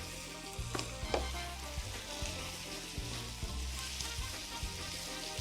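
Chicken slices and blanched vegetables sizzling as they are stir-fried in a hot oiled pan, with a steady hiss and two sharp clacks about a second in.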